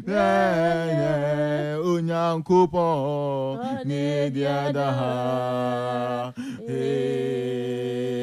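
A man and a woman singing a gospel worship song in Twi (Akan), long sliding sung phrases with two short breaks between them. A steady low hum runs underneath.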